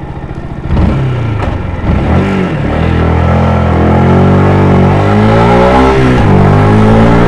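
Yamaha YZF-R125's single-cylinder four-stroke engine through its stock exhaust, idling and then revving up under a second in; the pitch climbs in long rises, drops sharply about six seconds in, then climbs again.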